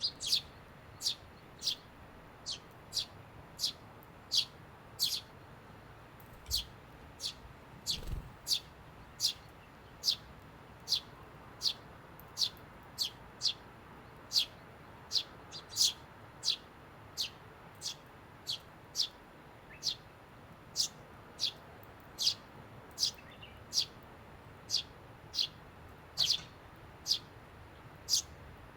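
Eurasian tree sparrow chirping: single short, sharp chirps repeated at a steady pace, about three every two seconds.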